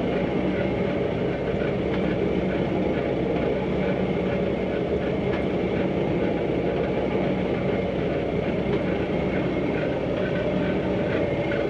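Rockford metal planer running, a steady mechanical hum with no let-up.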